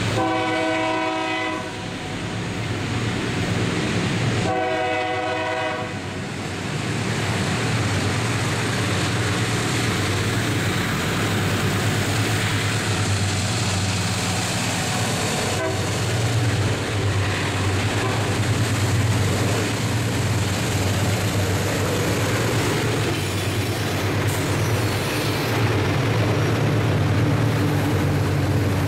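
Diesel freight locomotive sounds its horn in two blasts, each about a second and a half long, the second about four seconds after the first. The engine rumble then grows as it passes, and a long string of freight wagons rolls by with a steady rumble of wheels on rail.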